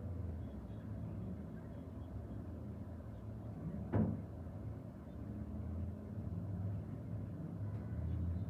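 Steady low rumble of road traffic, with a single sharp thump about halfway through.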